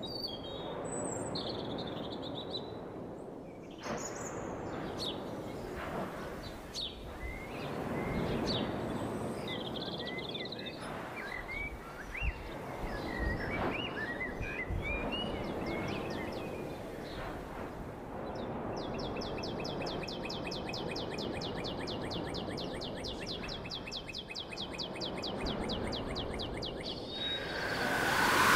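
Open-air ambience: a steady noisy background with birds chirping in short scattered calls, then a fast, even high trill lasting several seconds about two-thirds in.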